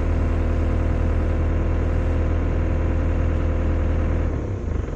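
Excavator's diesel engine running steadily with a deep, even drone; its sound drops off about four seconds in.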